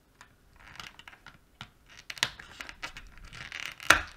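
Small screwdriver prying at the plastic snap clip on an RS41 radiosonde's casing: scattered scraping and small clicks, with one sharp snap just before the end as the clip comes out.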